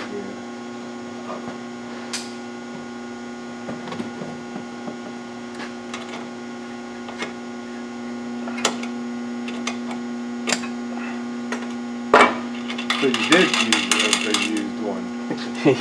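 Scattered metallic clinks and taps of hand tools and steel suspension parts being handled, over a steady electrical hum. About twelve seconds in the clinking thickens into a brief run of clattering.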